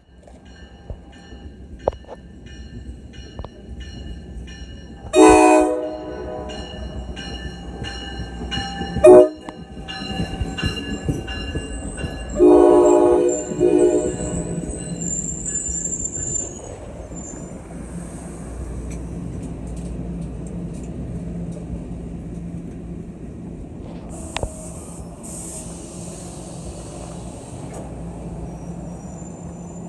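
NJ Transit commuter train sounding its horn three times: about five seconds in, a short and loudest blast about nine seconds in, and a longer blast about twelve seconds in, over a rhythmically ringing grade-crossing bell. Then its bilevel coaches roll past with a steady rumble and a high wheel squeal.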